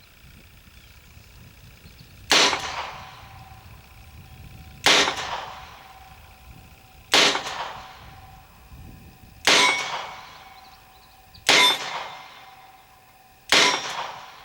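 Six shots from a 1904 Colt New Police revolver in .32 Colt New Police (.32 S&W Long), firing target wadcutters. They come at a steady pace about two seconds apart, each a sharp crack with a ringing tail that fades over about a second.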